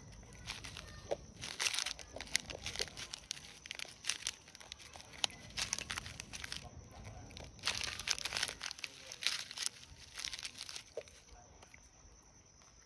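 Crinkling of a foil-plastic snack wrapper as a macaque handles and picks at it: a run of irregular crackles that dies down near the end.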